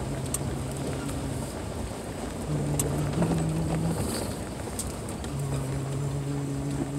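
Vehicle engine running at low speed on a dirt road, heard from inside the cabin, with a steady rumble of tyre and road noise. The engine hum fades in and out under changing load and steps up slightly in pitch about three seconds in.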